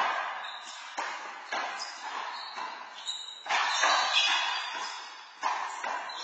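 Handball rally on an indoor court: a rubber handball slapped by hand and smacking off the front wall and floor, about five sharp impacts in a few seconds, each ringing on in the echoing hall.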